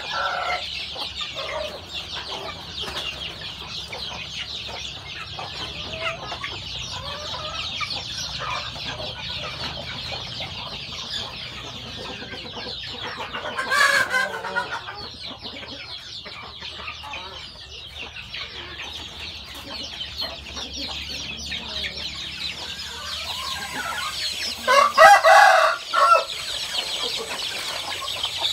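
A flock of game-type chickens clucking, with a rooster crowing loudly twice: a short crow about halfway through and a longer, louder one near the end. A steady high-pitched background runs underneath.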